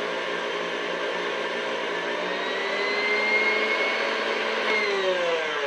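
KitchenAid Ultra Power stand mixer motor running with its wire whisk beating heavy cream to peaks: a steady whine that drifts slightly up in pitch, then winds down and stops near the end as the mixer is switched off.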